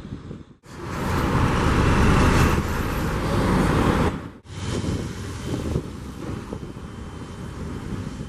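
Truck engine running loud and close for about three and a half seconds, stopping abruptly, then the steady noise of road traffic along a busy street.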